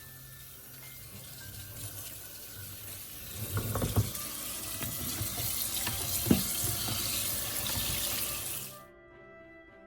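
Water running from a kitchen tap into a sink as a steady hiss that grows louder partway through, with two sharp knocks, and cuts off abruptly near the end.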